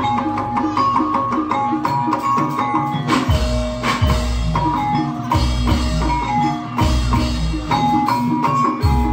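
Javanese jaranan gamelan accompaniment: metal mallet instruments play quick repeating notes over drumming, with deep booming strokes every second or two.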